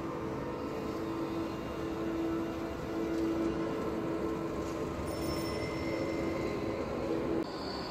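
Sound installation's steady mechanical drone: a rumbling noise with several held low tones. Near the end the low tones cut off suddenly and a high, thin held tone takes over.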